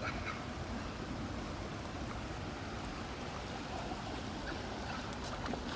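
Water sloshing and splashing steadily around a dog wading through shallow water.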